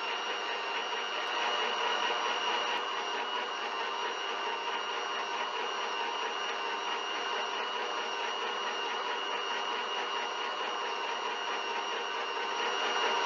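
Electric stand mixer running at a steady speed, its beater working a wet cake batter in a plastic bowl; a constant motor whine with a few steady tones.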